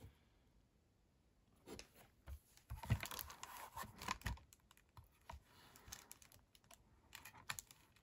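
Irregular light clicks, taps and rustling from handling a stamping platform, starting about a second and a half in: its clear hinged lid is closed down over the card and pressed to pick up a clear acrylic sentiment stamp.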